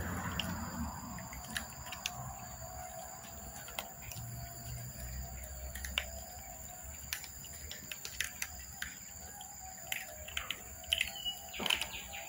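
Cats and kittens crunching dry kibble: irregular, scattered short crunchy clicks over a faint steady hum, with a few short high chirps near the end.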